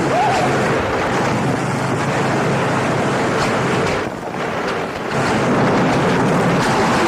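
A loud, steady wash of noise played back from an old reel-to-reel tape, without speech or clear tones. It dips briefly about four seconds in.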